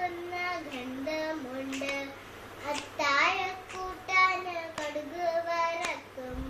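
A high solo voice singing a Malayalam poem unaccompanied, in phrases of held notes with small bends in pitch.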